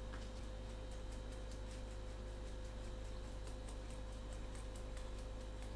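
A fine-mesh sieve being shaken and tapped to dust flour over meat skewers, giving a quick, even run of faint light ticks over a steady low hum.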